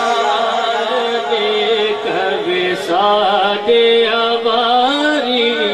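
A devotional naat being sung, one voice drawing out long, wavering ornamented notes over the music.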